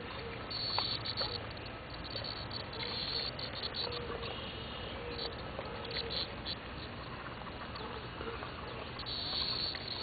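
Cicadas buzzing in uneven spells, louder about half a second in and again near the end.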